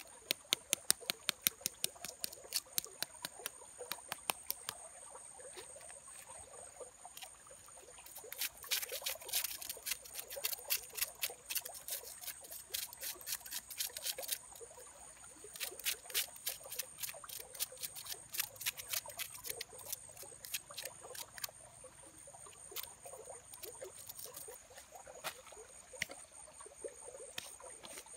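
Dry crackling clicks as the charred skin of grilled snakehead fish is picked and peeled off by hand, coming in dense clusters with short pauses between them. A steady high whine runs underneath.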